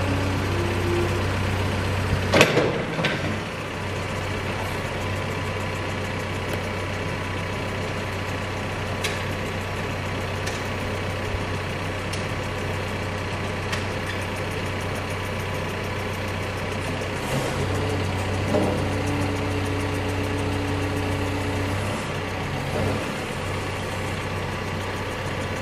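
CAT backhoe's diesel engine running steadily, with a sharp metallic clank about two seconds in. A little past the middle the engine note strengthens for a few seconds and a faint higher-pitched whine comes in, then drops away.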